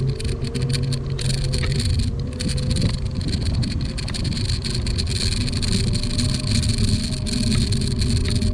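AOVO electric scooter riding along asphalt: a steady low rumble from the tyres and wind, with a thin motor whine slowly rising in pitch over the first several seconds.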